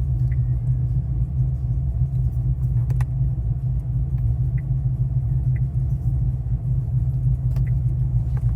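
2013 Holden VF Commodore SSV Redline's 6.0-litre V8 idling, heard from inside the cabin as a steady low rumble, with a few faint clicks.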